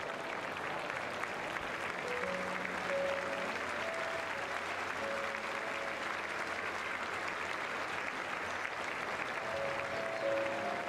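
Crowd applauding steadily, a dense crackle of clapping over music with a few held notes.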